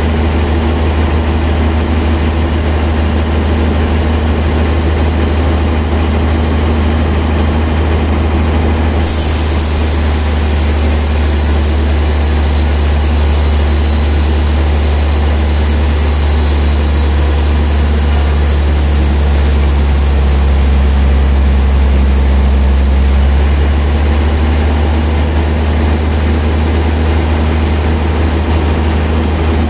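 Large sawmill band saw running with a steady low hum as its blade saws lengthwise through a trembesi (rain tree) log. About nine seconds in, a bright hiss joins the hum, and it stops abruptly some fourteen seconds later.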